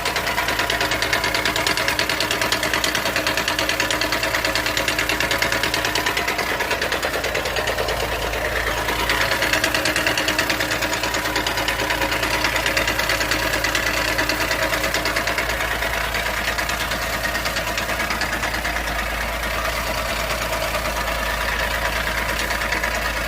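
2019 Ford Ka engine running steadily near idle, with a fast, even ticking laid over the drone. This is the engine noise the owner records as a problem. The engine picks up slightly for a few seconds about nine seconds in.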